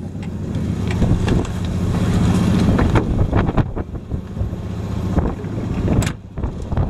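A fishing boat's engine runs with a steady low hum, wind buffets the microphone, and there are a few knocks.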